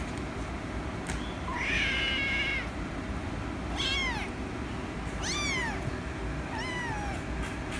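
A kitten meowing four times. The first call is longer and fairly level in pitch; the three later ones are shorter and fall in pitch. A steady low hum runs underneath.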